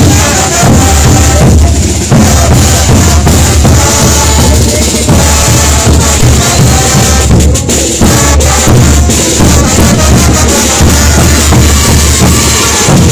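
Large Bolivian brass band playing live at full volume: sousaphones, trumpets and trombones over a steady beat from big double-headed bass drums, with cymbals adding a constant bright shimmer.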